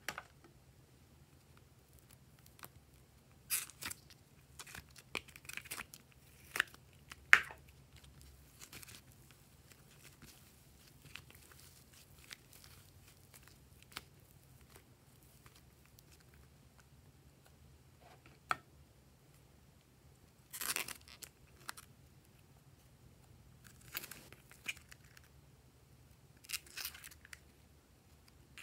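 Soft, fibrous rainbow clay being pulled and torn apart by hand, giving scattered short tearing and crackling sounds with a few sharp clicks between long quiet gaps.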